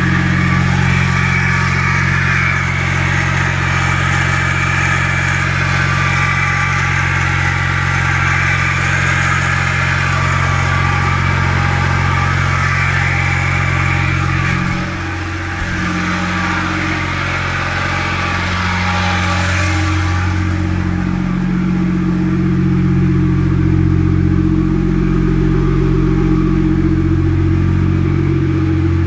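BMW E61 5 Series engine idling steadily with a mechanical noise at idle. Its level dips briefly about halfway through.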